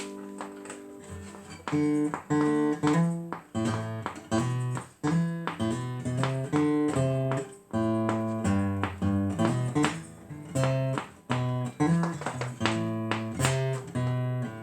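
Acoustic guitar played solo, a steady run of picked notes and strummed chords, each ringing briefly before the next.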